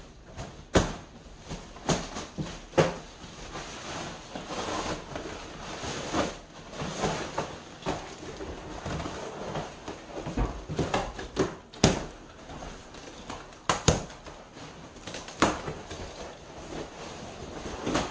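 Plastic wrapping rustling and crinkling as a packaged sofa section is unwrapped, with repeated sharp knocks and thumps from handling the furniture and its cardboard packing.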